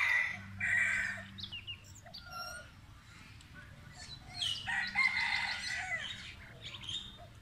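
Two long bird calls, one right at the start and one from about four and a half to six and a half seconds in, with short bird chirps between them.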